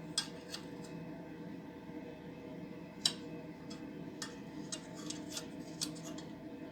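About ten scattered sharp clicks and light taps over a steady low hum; the loudest click comes about three seconds in.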